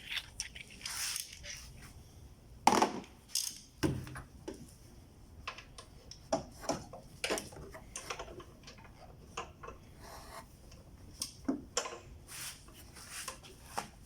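Metal hand tools clinking and knocking irregularly while a 14 mm alternator mounting bolt is worked loose on a car engine. The loudest knock comes about three seconds in.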